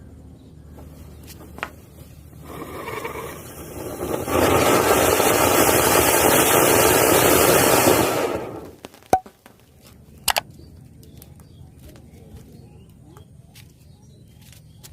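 An anar flower-pot fountain firework burning: a hissing spray that builds over a couple of seconds, runs loud and steady for about four seconds, then dies away. Two sharp cracks follow about a second apart.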